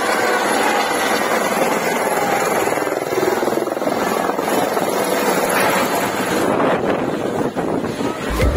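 Airbus H130 (EC130) helicopter lifting off and climbing away overhead: a loud, steady rush of turbine and rotor noise with a rapid rotor beat.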